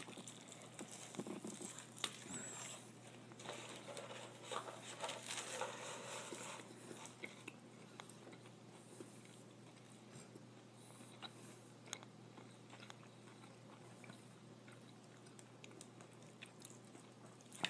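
Chewing a bite of a steakburger topped with crispy onions: faint crunching and mouth clicks, busiest in the first half, then sparser.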